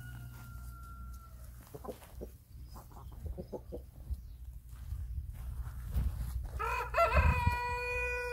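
Brahma rooster crowing once: one long crow, starting about six and a half seconds in, rising and then held steady. Before it, hens cluck in short calls.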